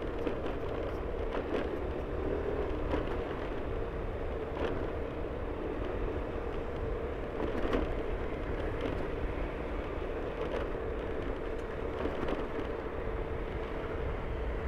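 Steady running of a road vehicle as it travels along a rough road, with road noise and a few faint clicks or rattles scattered through.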